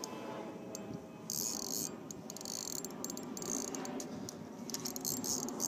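A fishing reel's drag buzzing in short runs of rapid clicks, starting and stopping as a hooked redfish pulls line against it.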